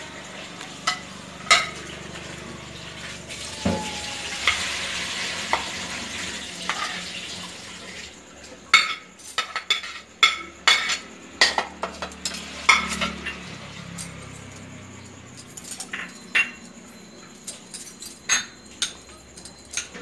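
A plastic serving spoon tapping and scraping on plates and a plastic mixing bowl as chopped vegetables and spices are tipped into a bowl of puffed rice, with a rustle as they land. A quick run of sharp taps comes from about eight to thirteen seconds in.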